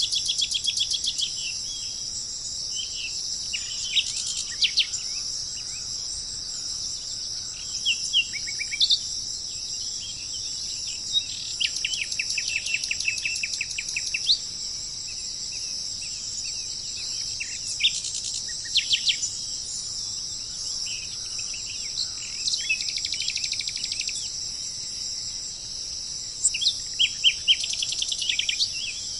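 Wild birds chirping and giving rapid trills several times over a steady, high-pitched insect drone of cicadas or crickets.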